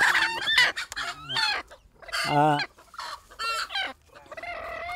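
A broody bantam hen clucking and squawking in a run of short calls that bend in pitch, with one longer call about two seconds in.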